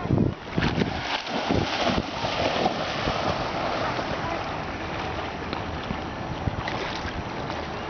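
A dog splashing as it wades into a lake and starts to swim, with the splashes bunched in the first three seconds. After that there is a steady rush of lapping water and wind on the microphone.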